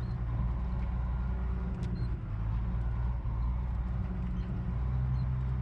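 A motor vehicle's engine running steadily with a low, even hum.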